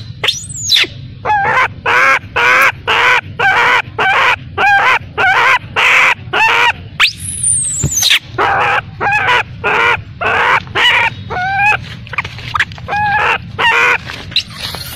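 Baby macaque crying in distress: a rapid run of short, wavering high-pitched cries, about two a second, with a few shriller squeals that sweep up and fall away.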